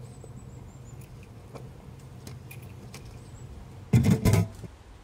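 A metal mailbox door is swung shut, giving two loud clanks about four seconds in. Before that there is only a low steady outdoor hum with faint high chirping.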